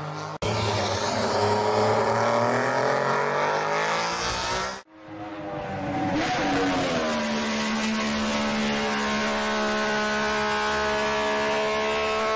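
MV Agusta 500 3C four-stroke triple racing engine revving as the bike accelerates, its pitch rising. About five seconds in the sound cuts away, then an engine note falls and settles into a long steady held note.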